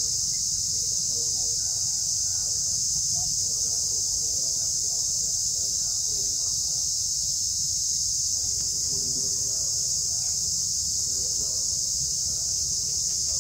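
Steady high-pitched drone of an insect chorus, unchanging throughout, over a low rumble, with faint distant voices now and then.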